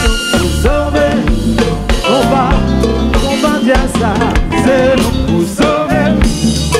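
Live Haitian konpa band playing, with a male lead singer over drum kit, congas and electric guitar.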